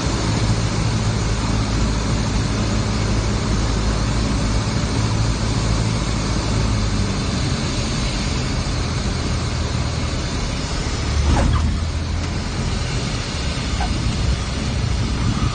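Cessna 172's engine running at low power during taxi, a steady drone with rushing noise in the cabin. A brief louder rumble about eleven seconds in, and a couple of faint short squeaks near the end.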